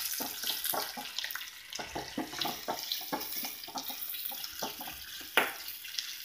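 Sliced onions sizzling in hot oil in a small pan, with frequent crackles and the scrape and tap of a steel spoon stirring them against the pan.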